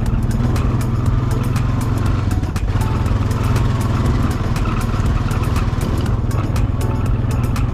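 Quad bike engine running steadily while being ridden, with many light knocks and rattles over it.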